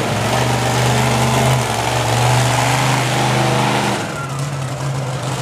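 Monster truck engine running hard at high revs, then easing off about four seconds in.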